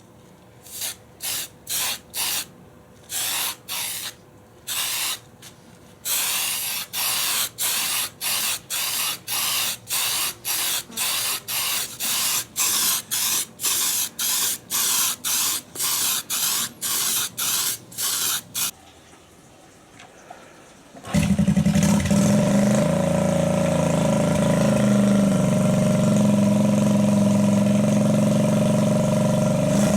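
An aerosol spray-paint can is sprayed in short hissing puffs, a few at first and then about two a second. After a short pause, a small motorcycle engine starts up loud and abruptly about two-thirds of the way in and runs steadily: the Honda CT110 postie bike's single-cylinder four-stroke.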